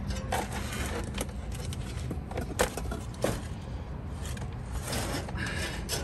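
A solar attic fan's sheet-metal ring and mounting brackets handled and held up against a screened wooden vent: several light metallic clicks and scrapes, the sharpest a little past halfway, over a low steady hum.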